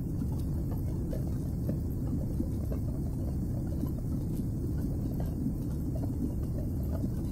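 Steady low rumble of cabin noise inside a Boeing 767 climbing after takeoff: engine and airflow noise heard at a window seat.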